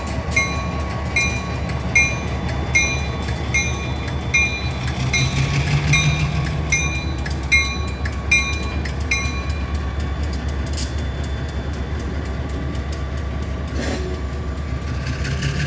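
EMD SD40-2 and GP15-1 diesel locomotives running slowly through a grade crossing, their engines a steady low drone that swells briefly midway. A bell dings about every 0.8 seconds and stops about nine seconds in.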